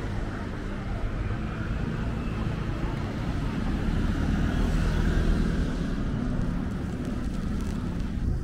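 Steady low rumble of road traffic on a city street, with vehicle engines running close by and swelling slightly about halfway through.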